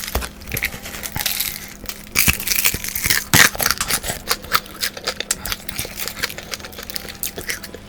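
Close-miked crunching and chewing of crispy fried garlic chicken: a dense run of sharp crackles and crunches from bites and chews, with a faint steady hum underneath.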